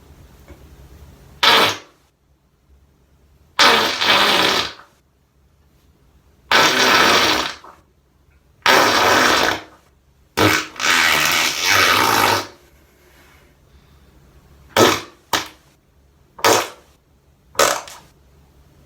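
Fart sound effects: about ten separate blasts with short gaps between them. The four in the middle last about a second each, and the rest, near the start and the end, are short and sharp.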